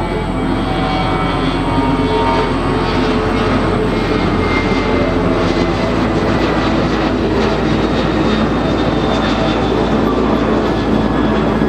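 The jet engines of a Lion Air Boeing 737 airliner at takeoff thrust as it climbs out close overhead after lift-off. The noise is loud and steady.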